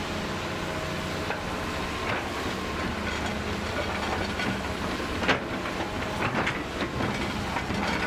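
Hitachi hydraulic excavator's diesel engine running steadily as the bucket digs into the rocky soil bank, with several sharp knocks and scrapes of bucket on rock and dirt, the loudest about five seconds in.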